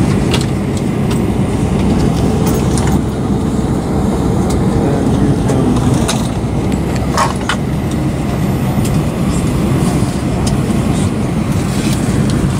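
Steady low rumble of cabin ambience inside an Airbus A320 parked at the gate during boarding, typical of the air-conditioning airflow, with a few short clicks and knocks from the cabin.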